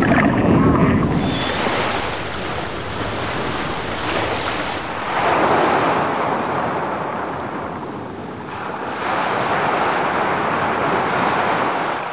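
Ocean surf: waves washing in and drawing back, the noise swelling and easing every few seconds.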